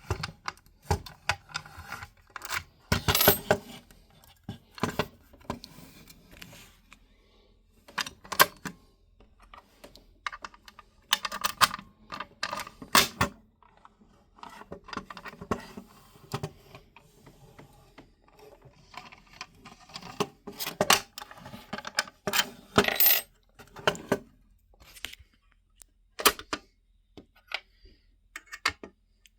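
Irregular hard clinks, clicks and knocks, some ringing briefly, in clusters, from a Simplex 4251-20 fire-alarm pull station and its parts being handled and set down.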